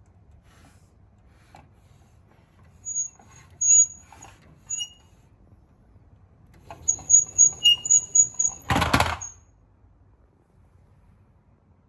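Toy minicar rolling down a slope, its wheels giving short high squeaks: a few scattered ones, then a quick run of about seven under a low rolling rumble. It ends in a loud, brief clatter about three-quarters of the way through.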